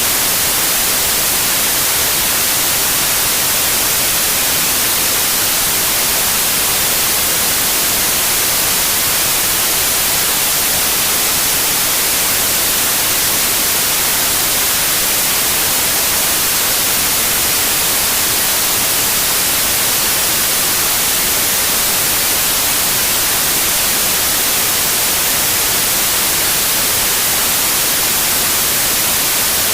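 Steady white noise: an even, unchanging hiss, strongest in the high frequencies, with no change in level.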